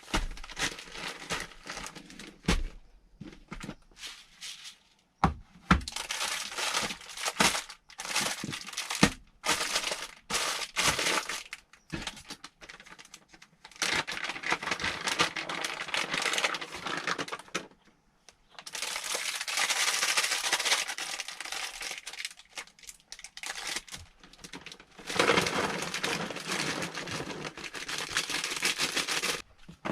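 Repeated stretches of crinkling, rustling handling noise, with scattered sharp knocks between them.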